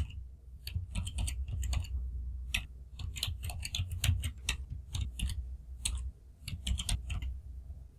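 Typing on a computer keyboard: quick, irregular key clicks with a couple of short pauses, over a steady low hum.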